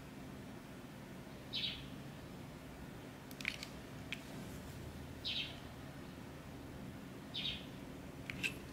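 Faint room tone with a short, high chirp about every two seconds, like a small bird calling, and a few light clicks.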